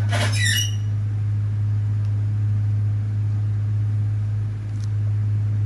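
Steady low-pitched hum, with a brief high chirp that falls in pitch right at the start.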